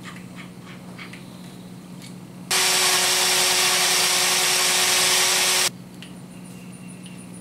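Cordless drill boring a pilot hole for a wood screw into a wooden cross brace. It runs at one steady speed for about three seconds and then stops abruptly. A few light handling clicks come before it.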